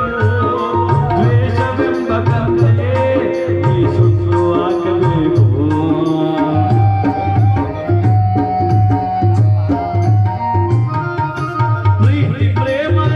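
Live devotional music amplified over loudspeakers: a tabla plays a steady repeating beat under held melodic notes.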